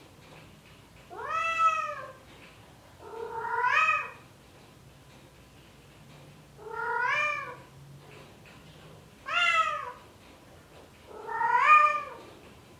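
Male Bengal cat in heat giving mating calls for a female: five drawn-out meowing yowls, each about a second long and rising then falling in pitch, spaced a second or two apart.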